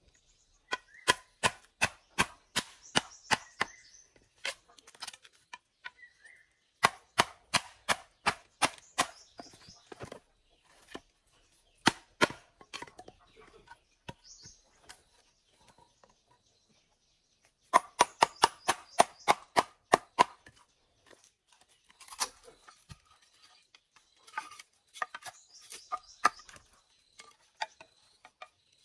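Quick runs of sharp blows from a hand tool on bamboo, about three or four strikes a second, in four bursts with pauses between. Birds chirp faintly in the pauses.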